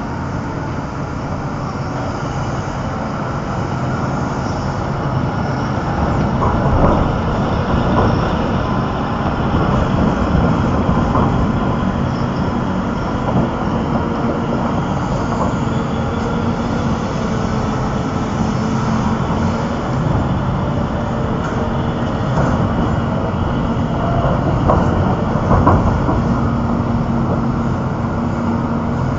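Caterpillar 6040 mining excavator running steadily with a deep, constant engine drone, and a few knocks and clanks here and there.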